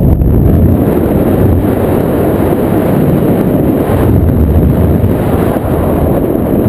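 Loud wind rushing and buffeting over the camera's microphone in flight under a paraglider, a steady low roar that rises and falls a little in gusts.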